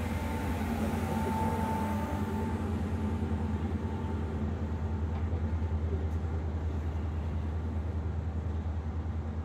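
Steady low drone of the jack-up rig's machinery: an engine-like hum with a fast, even throb, with a faint thin whine over it for the first two seconds or so.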